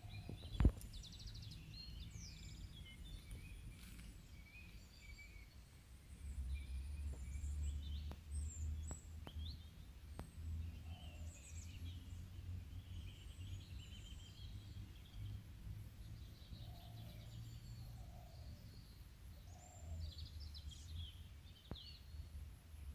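Several birds chirping and trilling over a low rumble, with one sharp knock about a second in.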